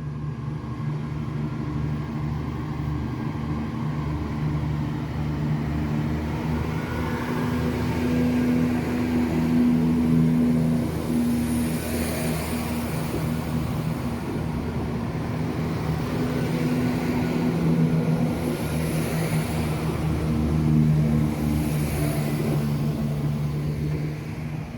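Class 168 diesel multiple unit's underfloor diesel engines running with a steady low hum, swelling and easing a little in loudness.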